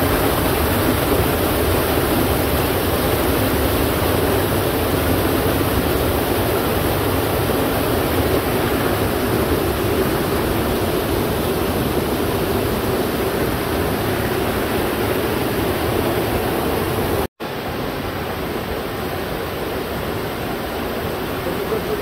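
Steady rushing of a waterfall's falling water. About three-quarters of the way through it cuts out for an instant, then resumes slightly softer.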